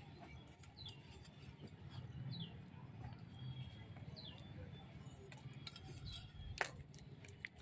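Faint bird chirps: three short falling notes about a second and a half apart over a low steady rumble, with a single sharp click about six and a half seconds in.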